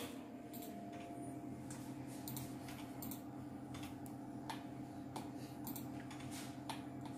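Faint, scattered clicks of a computer keyboard and mouse being worked, over a steady low hum.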